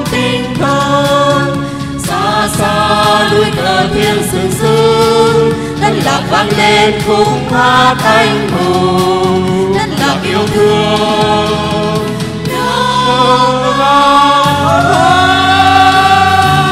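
A group of voices singing a song with instrumental accompaniment, ending on a long held note near the end.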